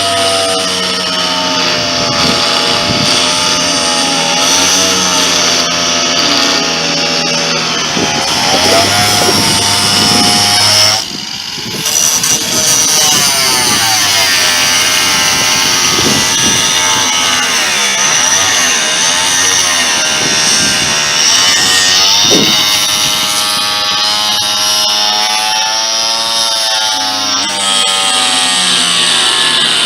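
Shop vacuum running steadily, its whine wavering up and down in pitch, with a brief drop about eleven seconds in.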